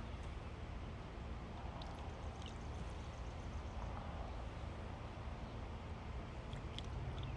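Sugar water being poured into a hive-top feeder, a steady trickling pour.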